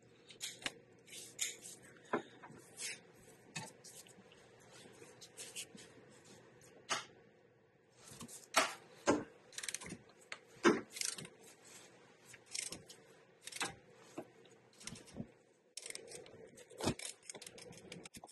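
Hand ratchet and socket on a 17 mm engine-mount bolt: irregular metallic clicks and taps as the ratchet is worked to loosen it, with a quicker run of ratchet clicks near the end.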